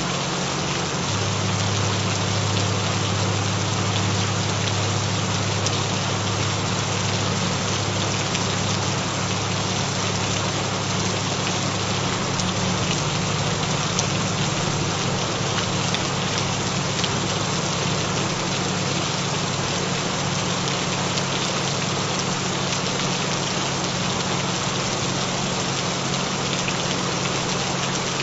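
Steady recorded rain falling, with a few low steady tones underneath: the binaural beat frequencies. The low tones shift slightly about a second in and again around thirteen seconds in.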